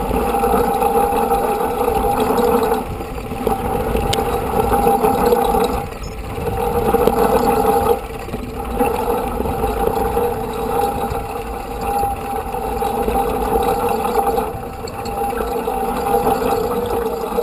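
Mountain bikes rolling over a gravel track, with a steady mechanical buzz that drops out and comes back several times, over low wind and tyre rumble on the camera microphone.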